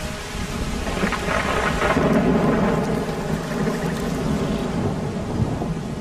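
Thunder rumbling over steady rain. The rumble builds about a second in, is loudest around two to three seconds, then dies away.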